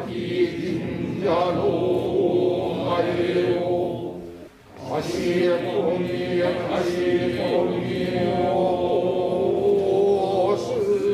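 A group of priests chanting a Tonaekotoba (an invocation of the kami and buddhas) in unison, a drawn-out recitation on long held notes. The chant breaks briefly for a breath a little before halfway, then resumes.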